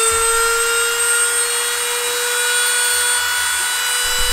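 Dremel rotary tool running at a steady high speed and grinding into an ostrich eggshell: a constant high-pitched whine over a gritty grinding hiss.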